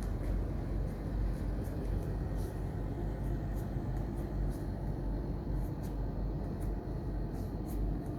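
Steady low drone of a boat's engines and hull, heard from inside its passenger cabin, with faint light ticks now and then.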